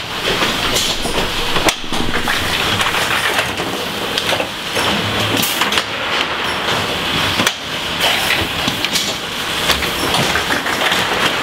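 Automated cress harvesting and packing machine running, pulling cress off the growing table onto conveyor belts: a steady mechanical clatter with many small clicks and knocks.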